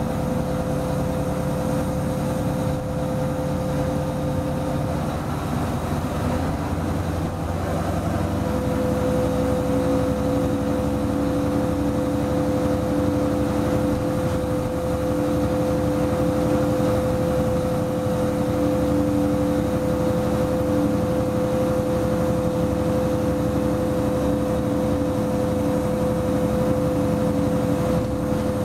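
Diesel locomotive engine running under power as the locomotive moves along the line, heard from the cab, with a steady whine over the engine hum. About eight seconds in the engine note steps up and grows a little louder as the revs rise.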